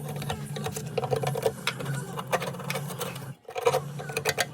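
Needle scaler chattering against rusty steel as scale is knocked off a fuel pump part, a fast run of metallic taps over a steady motor hum. It stops briefly about three and a half seconds in, then starts again.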